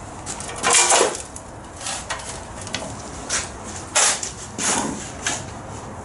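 Flat-nose shovel scraping and crunching into dirt: about six short noisy scrapes, the loudest about a second in and about four seconds in.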